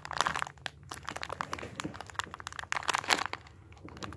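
Clear plastic squishy packaging bag crinkling as hands handle the foam bun inside it: an irregular run of crackles that thins out near the end.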